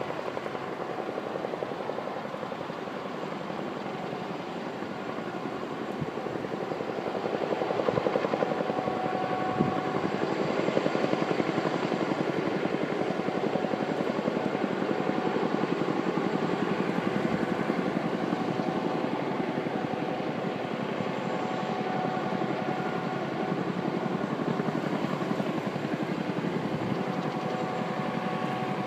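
Helicopters taking off and flying low over the airfield: steady rotor and turbine noise with a faint whine, growing louder about eight seconds in.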